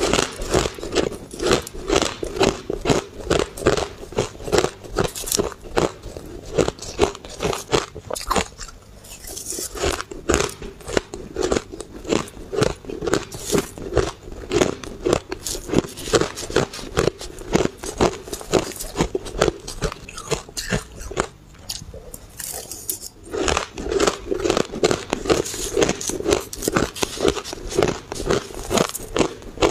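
Close-up chewing of a mouthful of blended shaved ice: rapid crisp crunches, several a second, with a short lull about three-quarters of the way through.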